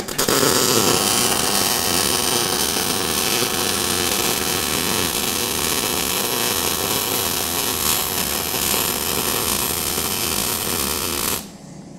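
MIG welder arc running steadily as a bead is laid along a plate. It starts at once and cuts off sharply shortly before the end, when the torch trigger is released.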